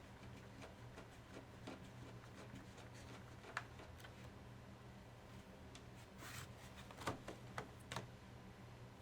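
Faint, scattered small clicks and a brief scrape of hands handling laptop parts over a steady low electrical hum, with the loudest clicks near the end.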